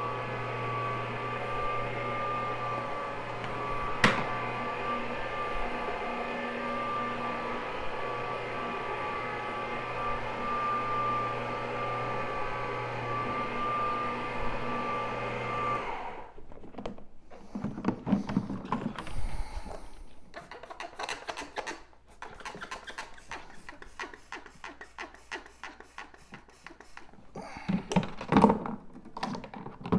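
Carpet cleaning machine running steadily with an Astro turf pad on a wool rug, pulling soil out of the pile, then shut off about halfway through. After it stops come scattered knocks and handling clatter, with a few heavier thumps.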